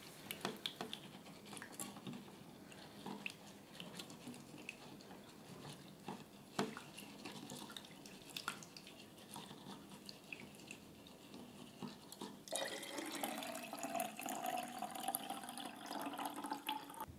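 A hand squishing and swishing soaked grains in milky water in a stainless steel saucepan, with small clicks and splashes. About twelve seconds in, milky liquid starts pouring from the pan into a glass jar in a steady trickle, with a held tone, that lasts until the end.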